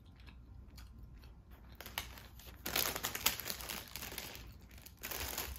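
Soft bread being chewed quietly, then a paper bakery bag crinkling and rustling as it is handled. The rustling is loudest about halfway through and starts up again near the end.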